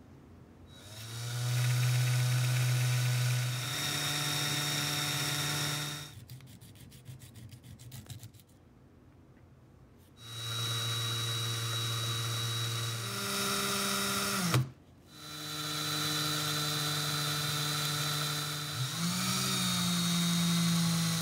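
Cordless drill running in three runs of several seconds, its pitch stepping up and down as the trigger is varied, spinning a slotted hand-plane screw held in the chuck while it is polished with 220-grit sandpaper and an abrasive pad. A sharp click as the second run stops.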